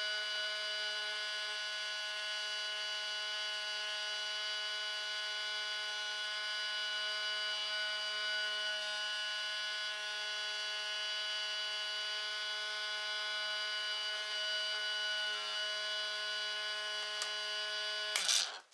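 The spinning magnet rotor and drive of a Delayed Lenz Effect test bench running at a steady speed: a constant whine with many overtones. A short loud knock comes near the end, then the sound cuts off.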